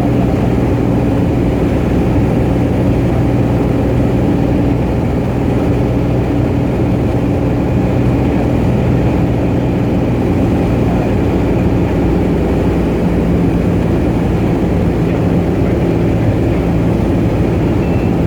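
Cessna 210 Centurion's six-cylinder piston engine and propeller droning steadily in flight. The engine's tone shifts slightly about two thirds of the way through.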